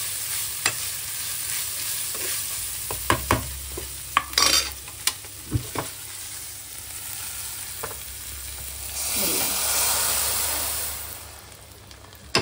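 Chopped dry fruits and mawa sizzling in hot ghee in a non-stick frying pan, with a metal ladle scraping and knocking against the pan. About nine seconds in, a louder hiss lasts about two seconds as the hot ghee and nuts are tipped into the pot of milk.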